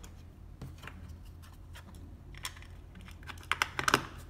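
White plastic cover of an LED spotlight driver being handled and pressed shut by hand, with a quick run of sharp plastic clicks near the end as it snaps onto the case.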